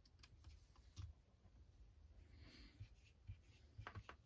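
Near silence with faint, scattered light clicks and taps of small RC crawler chassis parts being handled, one about a second in and a few more close together near the end.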